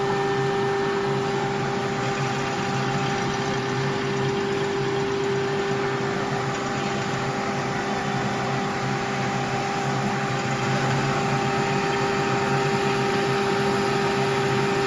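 Electric motor of a CQ-38G sole-cavity milling machine running steadily with a constant hum and whine.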